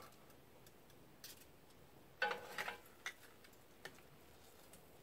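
Faint clicks and knocks as a seared deer shoulder is lifted from a wooden board and set into a pan of sauce on a kettle grill, with one louder clunk about two seconds in.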